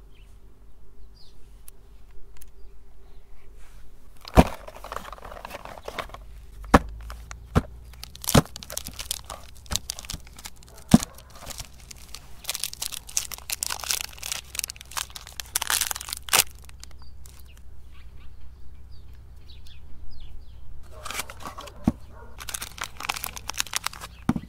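Soap packaging being handled and unwrapped by hand: plastic wrappers crinkling and paper and cardboard wrapping tearing, with many sharp clicks and taps as boxes and bars are picked up and set down.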